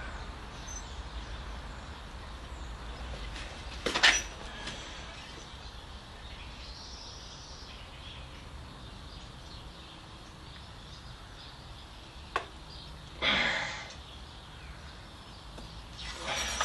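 Steel coil spring clamped in a vise being pulled out by hand with pliers to stretch it: a few short rasping sounds and one sharp click over a steady low workshop hum.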